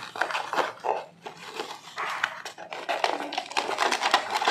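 A small cardboard box and a plastic anti-static bag being handled as the box is opened: rustling and crinkling with many small clicks and taps.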